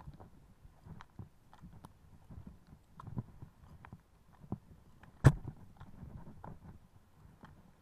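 Scattered faint clicks and knocks over a low rumble, with one sharp, loud knock about five seconds in.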